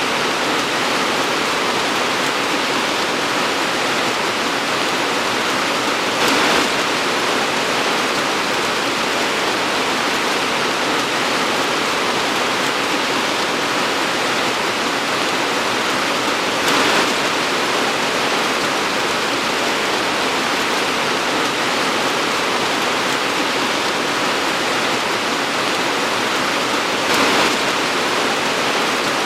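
Torrential tropical rain pouring down in a loud, steady hiss, with three brief louder swells evenly spaced about ten seconds apart.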